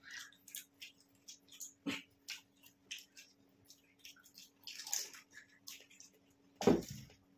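Pani puri being eaten fast: crisp puri shells cracking and crunching, with wet slurps and splashes as the shells are dipped in spicy pani and eaten. A few louder wet mouthfuls stand out, the loudest about a second before the end.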